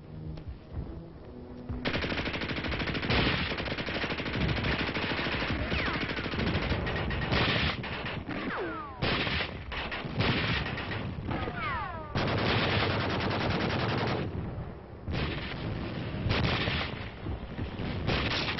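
Battle soundtrack of dense machine-gun and rifle fire, rapid shots packed together and starting up about two seconds in, with brief pauses. Several short falling whistles cut through the firing midway.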